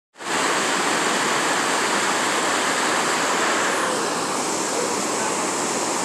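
Small waterfall pouring over a low rock ledge in a creek: a steady, loud rush of white water.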